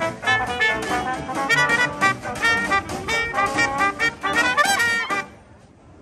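Upbeat jazzy music led by brass, which stops about five seconds in.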